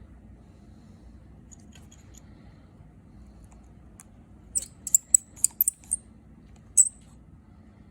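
Light, sharp clicks and small metallic clinks: a quick run of them starting about halfway through, then one more near the end.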